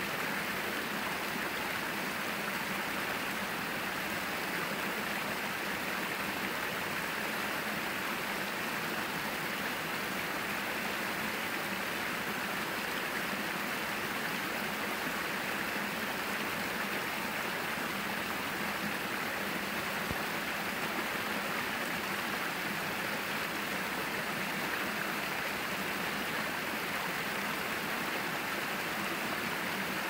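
Small woodland stream splashing and gurgling steadily over a low rock ledge and through a boulder-strewn bed.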